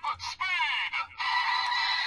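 Toy Kamen Rider transformation belt playing Drive's electronic jingle through its small speaker, triggered by the Drive Raise Buckle slotted into it. Quick wavering high-pitched tones give way about a second in to a steady held chord.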